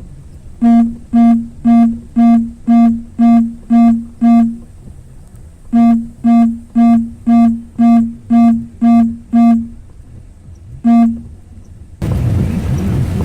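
Vehicle seatbelt reminder chime: a single-pitched electronic ding repeated about twice a second, eight times, then after a short pause eight more, and one last ding. Rain and road noise return near the end.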